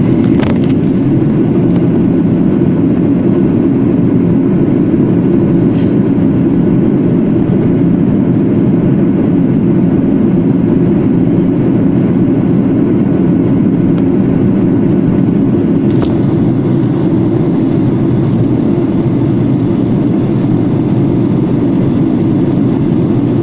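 Steady cabin noise of a Boeing 737-800 in flight, heard inside the cabin over the wing: a deep, even rumble of its CFM56-7B turbofans and the airflow.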